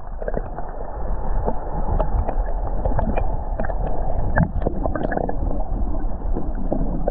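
Muffled rushing and gurgling of a strong tidal current, heard through a camera held underwater, with many small clicks and crackles of moving water.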